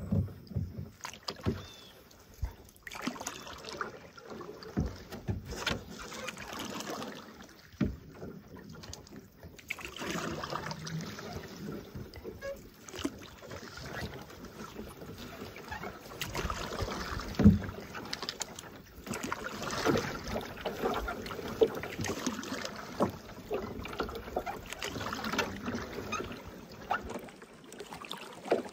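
Canoe paddles pulling through thick lily pads: irregular swishing, splashy strokes with occasional sharp knocks, the loudest about two-thirds of the way through.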